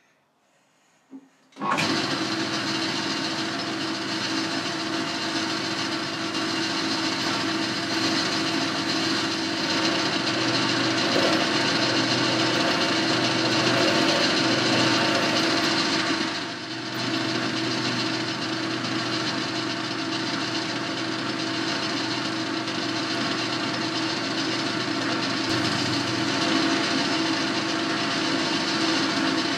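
Boxford lathe started about two seconds in and running steadily with a fixed hum, while a drill in the tailstock chuck cuts into the spinning workpiece. The noise dips briefly a little past halfway.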